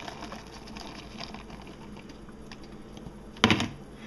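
Light scattered clicks and rustles of crumbled cooked ground turkey being piled onto a plate of fried eggs and shredded cheese. A brief, louder noise comes about three and a half seconds in.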